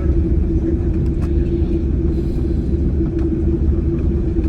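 Steady low rumble of a Boeing 747-8i's engines and airflow heard inside the passenger cabin, with a constant hum and a few faint clicks.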